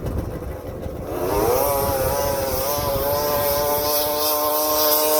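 Racing snowmobile engine revving up about a second in, its pitch climbing quickly and then held at a steady high note at full throttle, over a low rumble.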